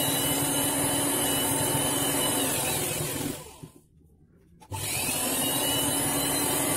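Electric sewing machine stitching through layered blouse fabric in two runs: its motor whines up, runs steadily, winds down and stops a little past three seconds in. After about a second's pause it starts again near five seconds in.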